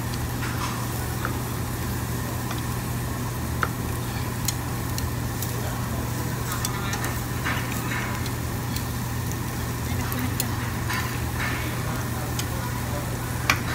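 Sliced meat sizzling on a Korean barbecue tabletop grill, with scattered clicks of metal tongs turning it, over a steady low hum.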